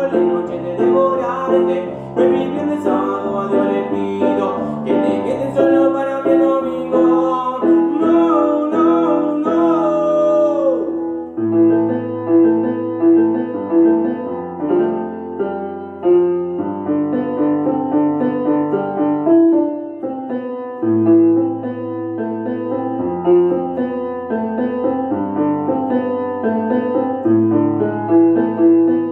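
A man singing in Spanish to his own electronic keyboard accompaniment; his voice ends on a long held note that slides down about eleven seconds in. The keyboard then carries on alone, playing chords over a repeating bass.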